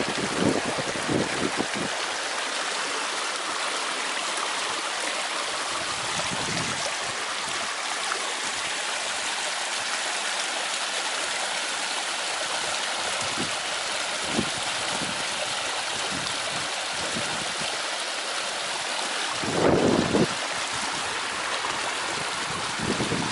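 Small waterfall splashing steadily, an even rush of falling water. Brief low rumbles of wind on the microphone come in the first couple of seconds and again about twenty seconds in.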